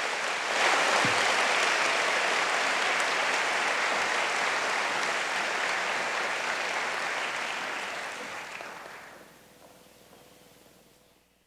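Audience applauding steadily, then dying away about nine seconds in.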